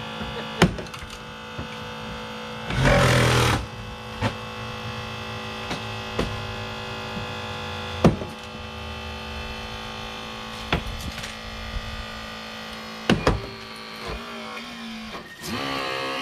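Steady mechanical hum of rescue equipment running at a car extrication, with a few sharp metallic knocks and a short burst of noise about three seconds in.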